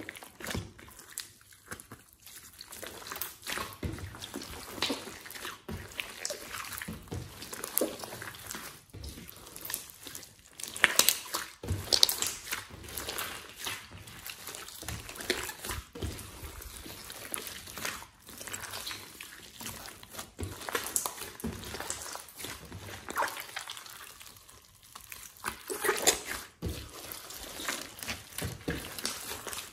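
A large mass of mixed slime being squeezed, stretched and folded by hand: sticky squishing with an irregular run of clicks and pops, the loudest pops about a third of the way through and again near the end.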